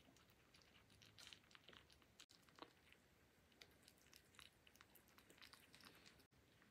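A kitten crunching dry kibble: a faint, quick, irregular run of small crisp crackles as it chews.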